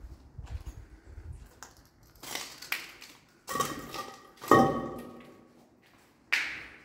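Footsteps over a floor littered with broken glass and debris: crunching steps, then several sharp clinks of glass or metal pieces that ring briefly, the loudest about four and a half seconds in, and one more sharp hit near the end.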